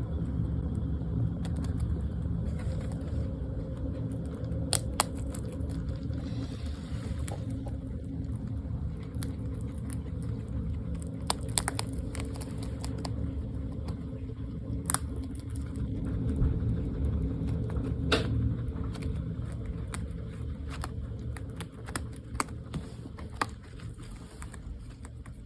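Guinea pig purring: a steady low, buzzing rumble of contentment, the 'feels good' sound, with scattered sharp clicks over it.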